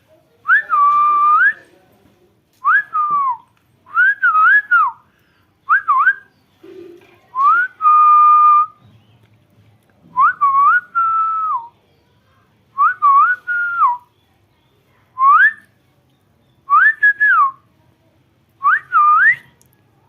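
Pet parrot whistling a short up-and-down tune over and over: about ten clear whistled phrases, each a second or so long, with short pauses between them.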